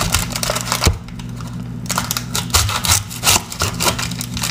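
Kitchen knife cutting into a whole onion and peeling away its dry, papery outer skin on a wooden cutting board: a run of irregular crackles and small knife taps. A steady low hum runs underneath.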